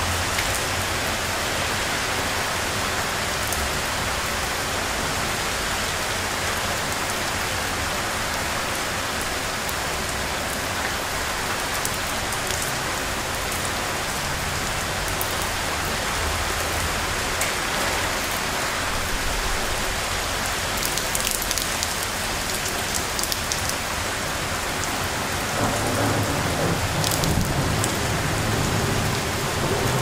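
Steady storm rainfall, with sharp drop ticks here and there. A low rumble comes in near the end.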